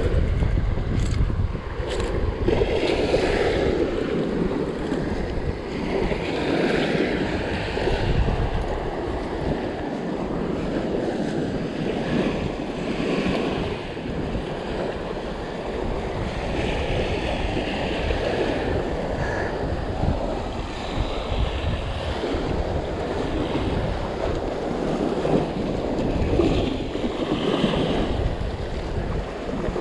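Small waves washing onto a sandy beach, with wind gusting across the microphone.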